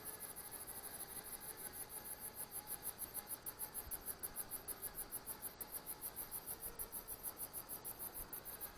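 Insects chirping in a fast, even, high-pitched pulse, about seven chirps a second, over a faint hiss.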